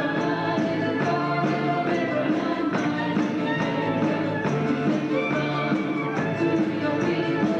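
Live worship band playing an upbeat song with a steady beat: drum kit, electric and acoustic guitars and keyboard.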